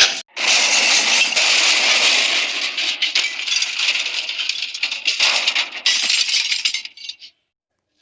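Cartoon crash sound effect: a long run of breaking and clattering debris, dense with small clicks, that thins out and stops about seven seconds in.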